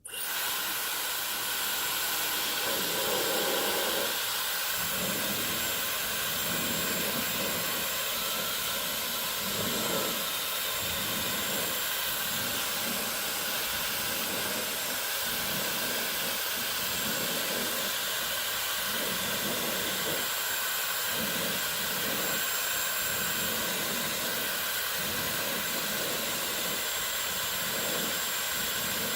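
Dyson Supersonic hair dryer switched on and running steadily: a rush of air with a thin, steady high whine. The lower part of the air sound wavers irregularly throughout.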